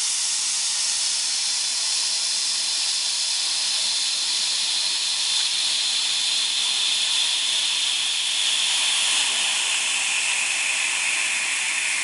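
Rocket candy motor (60/40 potassium nitrate and sugar, no additives) burning with a steady, loud hiss of exhaust, its pitch slowly falling.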